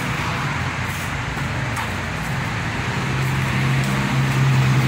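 A motor vehicle engine running close by over steady road traffic noise, its low hum growing louder in the second half.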